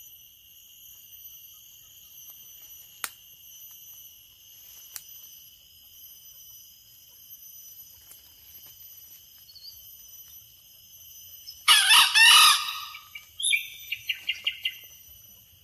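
Junglefowl rooster crowing once, a short loud crow well past the middle, followed at once by a quick run of about six short, sharp calls.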